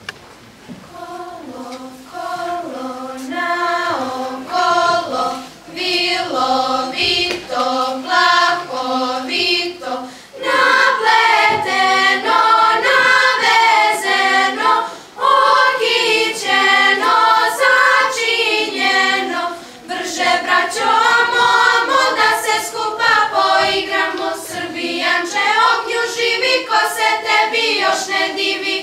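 Girls' school choir singing unaccompanied. The song starts softly about a second in, grows fuller and louder about a third of the way through, and ends right at the close.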